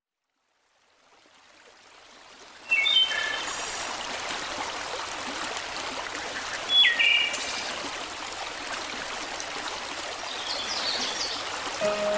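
Steady rush of running water, like a stream, fading in and then jumping louder about three seconds in, with short chirps three times over it.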